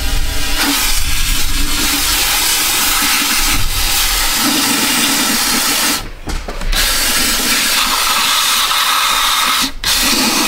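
Undercoating spray gun hissing as it fogs Fluid Film rust-proofing oil through a flexible wand. The spray stops briefly about six seconds in and again for a moment near the end.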